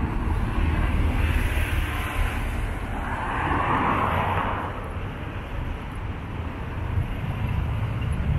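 Road traffic passing on a multi-lane city avenue, a steady tyre-and-engine hum, with one vehicle passing louder about three to four and a half seconds in.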